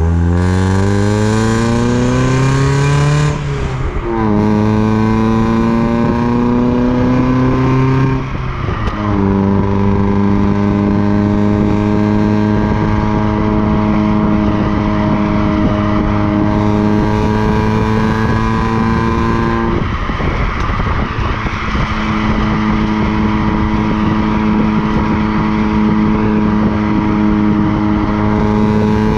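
Mazda MX-5 NB's four-cylinder engine through a decat exhaust (catalytic converter removed), heard at the tailpipe while driving. It rises in pitch through two gears with two upshifts in the first nine seconds, then holds a steady cruise, with a brief dip about two-thirds of the way through.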